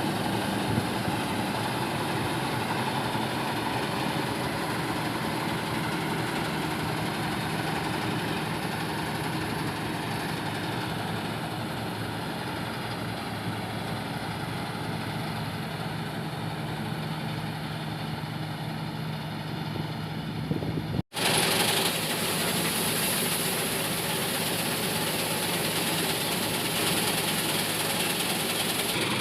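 Diesel engine of farm machinery running steadily. There is a sudden momentary break about three-quarters of the way through, after which the sound is brighter, with more hiss.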